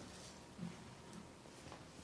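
Faint crackling of a vine-tied brush bundle burning in a wood stove: a low hiss with a few soft ticks.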